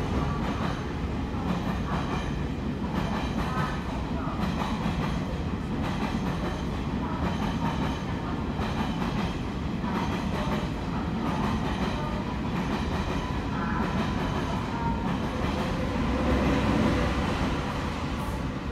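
Electric train running, a steady rumble with wheel-on-rail clatter, heard from inside a passenger car.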